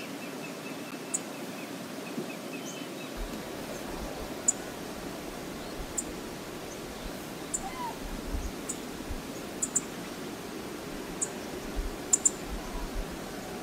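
Open-air meadow ambience picked up by a wildlife webcam microphone: a steady even hiss with low wind rumble from about three seconds in, a few faint bird chirps near the start, and scattered short high ticks.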